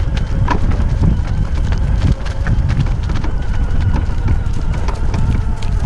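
Wind buffeting a microphone on a moving off-road vehicle, with a steady low rumble and scattered knocks and rattles as it rides over a bumpy dirt track.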